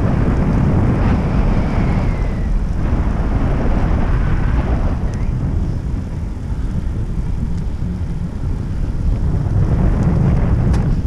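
Wind buffeting the microphone of a moving bicycle, a steady, rough rumble weighted low.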